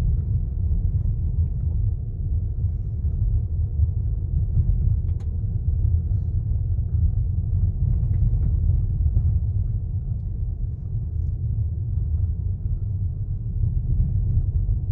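Car driving on a dirt road, heard from inside the cabin: a steady low rumble of tyres and engine, with a few faint ticks.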